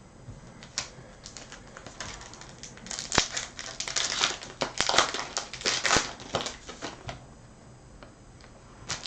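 Topps Chrome trading cards being handled: a run of small clicks and crinkling rustles of cards and pack wrapper, busiest in the middle and dying down near the end.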